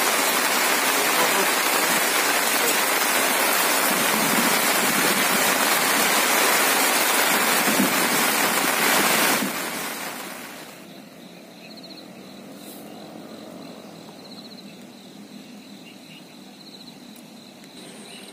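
Heavy rain falling, a dense steady hiss, which fades out about ten seconds in. Quiet outdoor ambience follows, with a faint, thin, high chirping that pulses now and then.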